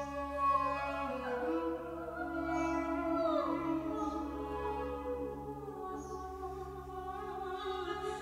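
Calm background music: steady held drone tones with a soft low pulse about once a second, and a slow singing voice gliding over them.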